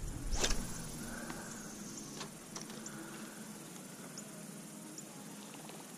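Faint insect chirps and scattered short, high ticks over a quiet outdoor background, with a brief swish about half a second in.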